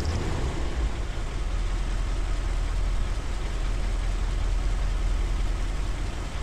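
1977 Corvette L-48 350 V8 with a Quadrajet carburetor idling steadily at about 750 rpm, heard from inside the cabin. About three minutes after a cold start, the choke has come off and the fast idle has dropped to low idle.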